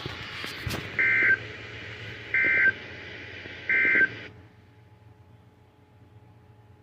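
Three short bursts of Emergency Alert System digital data tones, a harsh warbling screech about 1.3 s apart, over weather-radio hiss: the end-of-message code that closes an alert broadcast. The hiss cuts off suddenly just after the third burst.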